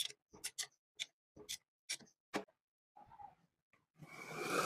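Sharp metallic clicks, about two a second, from a wrench being worked on the valve rocker-arm adjuster nuts of a scooter engine's cylinder head; they stop about halfway through. Near the end a louder rushing, breathy noise lasts about a second.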